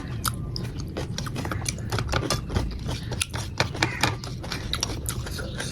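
Close-miked eating: irregular wet chewing and mouth clicks from someone eating rice, dal and vegetables, with no steady rhythm.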